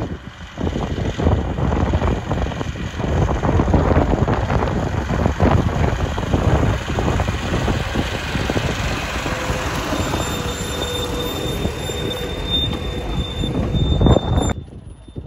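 Narrow-gauge diesel locomotive hauling a carriage past at close range: the engine running and the wheels rattling on the track. A thin, high wheel squeal joins in on the curve for the last few seconds. The sound cuts off suddenly just before the end.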